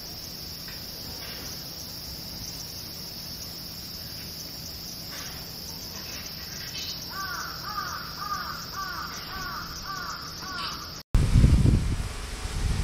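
A crow cawing about seven times in a quick, even series, over a steady high insect drone. Near the end the sound drops out for a moment and a loud low rumble starts.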